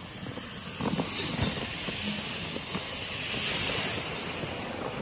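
Small sorghum seeds pouring from a sack into a seed drill's hopper: a steady hissing rush of grain sliding onto the seed heap.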